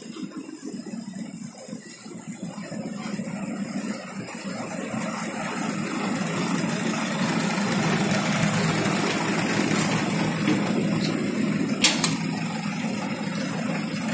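Tow truck's engine idling steadily, growing louder over the first few seconds and then holding level, with one sharp click near the end.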